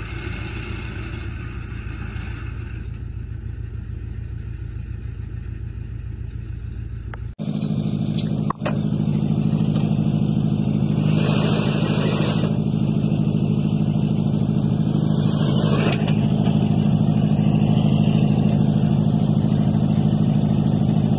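The borewell rig truck's engine runs steadily, powering the rig that hauls the pipe column and cable out of the borewell. About a third of the way in the sound turns louder with a strong low hum. A sharp click follows shortly after, and a brief hiss comes near the middle.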